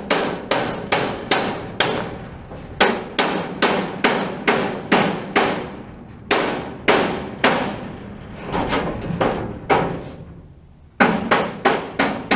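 Hammer striking the steel of a Little Giant elevator section: sharp, ringing metal clangs in quick runs of about two to three blows a second, with a short pause about ten seconds in, as a bracket is beaten loose.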